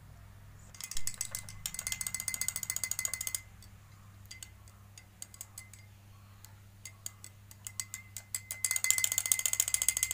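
A metal spoon stirring colour into sugar water in a small drinking glass, clinking rapidly against the glass with a faint ringing note. Fast stirring about a second in and again near the end, with scattered slower clinks in between.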